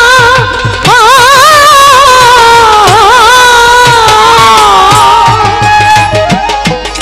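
Live Baul folk song: a woman singing a long, wavering melismatic phrase that slowly falls in pitch, over a steady drum beat. Sharper hand-percussion clicks join near the end.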